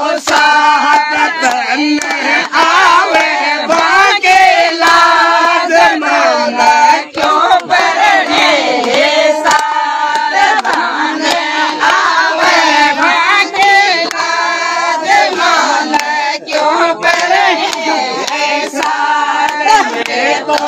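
A group of women singing a Rajasthani folk song together, with hand claps keeping time.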